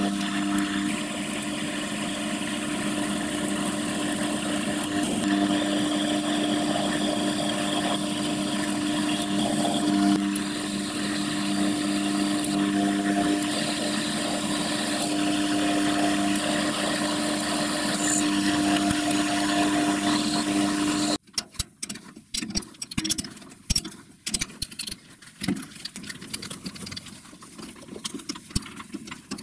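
Metal lathe running steadily while turning a steel part, a constant mechanical hum with several steady tones and a hiss of cutting. About 21 seconds in it cuts off suddenly, and irregular metal clicks and knocks follow as the part is handled at the stopped chuck.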